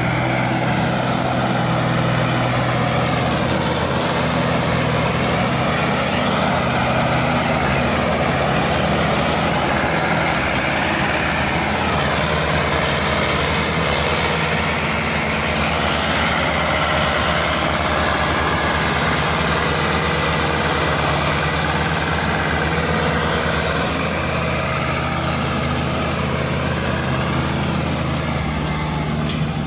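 Mahindra tractor diesel engines, together with the engines of the tractors behind, running steadily and loud while hauling a heavily loaded sugarcane trolley.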